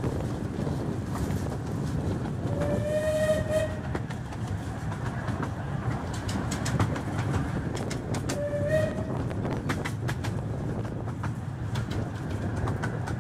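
Bulleid whistle of a 15-inch-gauge 4-6-2 steam locomotive sounding twice: a long blast a few seconds in that rises slightly in pitch, then a short blast a few seconds later. Under it runs the steady rumble of the train, with rail-joint clicks, heard from an open coach.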